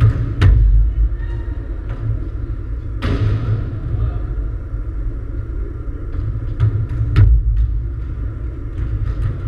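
Volleyball being played in a sports hall: a few sharp smacks of the ball being hit, the strongest about three and seven seconds in, each echoing briefly in the hall, over a constant low rumble.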